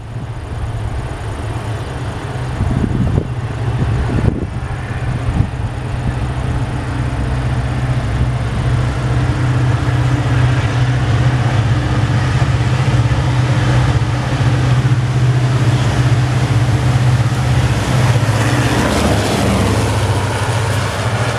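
Diesel locomotive's engine running with a deep, steady drone. It grows steadily louder as the locomotive approaches and comes past close by near the end.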